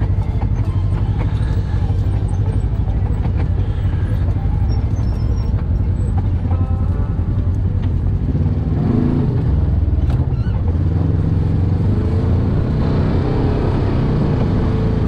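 Polaris RZR 1000 side-by-side's engine running at low speed, heard from inside the open cab as the buggy creeps over rough ground. In the second half the engine note rises and falls as the throttle changes.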